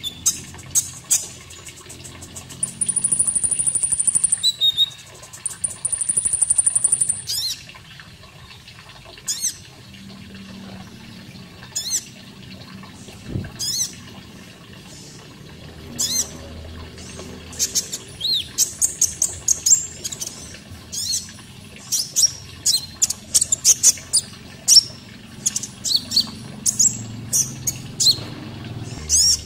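Konin (grey-headed canary-flycatcher) singing: sharp, high chirps throughout, two long high trills in the first seven seconds, and quick bursts of chirps crowding together in the last ten seconds. Running water sounds low underneath.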